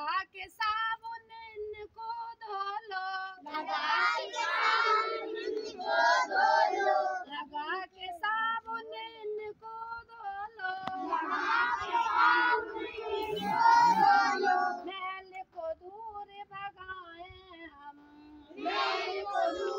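A group of young children singing a Hindi action song about handwashing, led by a woman: stretches of her single voice alternate with the children singing together in unison, louder and fuller.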